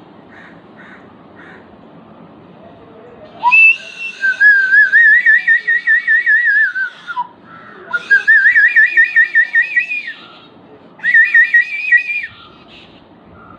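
A bird giving three long warbling whistled phrases, each a quickly wavering tone that rises and falls in pitch.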